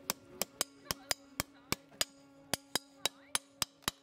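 Farrier's hammer tapping horseshoe nails as a steel shoe is nailed onto a feathered draft horse's hoof: about fifteen sharp, ringing metallic taps, unevenly spaced, some in quick runs.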